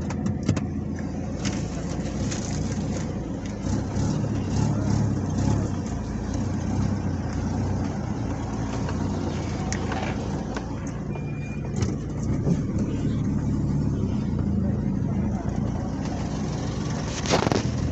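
A motor vehicle's engine running steadily with a low hum, with scattered light clicks and a louder knock near the end.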